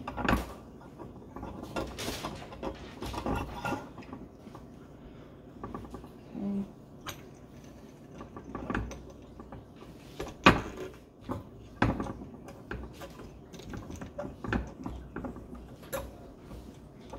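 Lab equipment being handled while a test tube is set up on a ring stand: scattered knocks and clicks of metal and glass, the loudest about ten seconds in.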